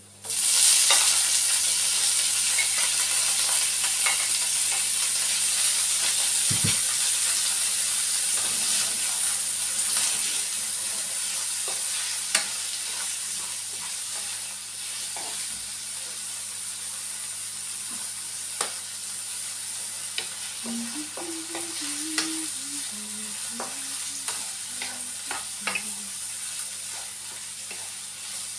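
Pieces of food slid from a plate into a frying pan of hot oil, setting off a loud sizzle all at once that slowly settles, while a wooden spatula stirs them, clicking and scraping against the pan now and then.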